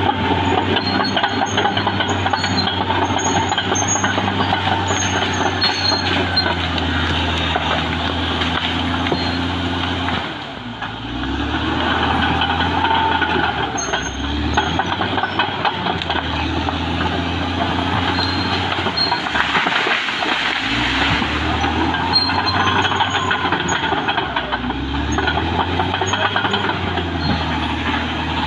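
Caterpillar D6R XL crawler dozer's diesel engine running under load while the dozer works into the brush. The engine sags briefly about a third of the way in, then its pitch rises and falls several times as the load changes, with short high squeaks over it.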